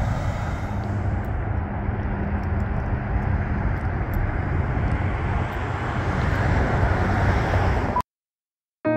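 Steady low rumble of road traffic and vehicle noise, which cuts off abruptly about eight seconds in. After a moment of silence, piano music begins at the very end.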